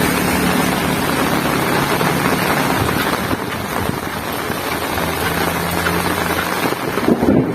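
Heavy rain falling steadily, a dense hiss with a faint low hum underneath. Near the end a louder low rumble sets in.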